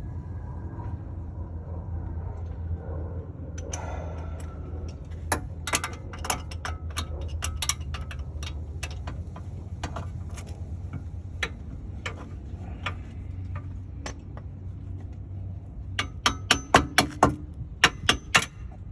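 Hammer tapping a socket onto a rounded-off hub bolt head to seat it, with about ten sharp metal strikes in quick succession near the end. Before that come scattered clinks of metal tools, over a steady low rumble.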